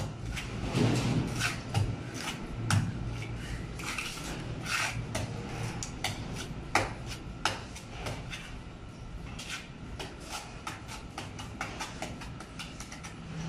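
Small steel trowel scraping and pressing mortar into the joint of precast concrete wall panels: a quick, irregular series of short scrapes and taps.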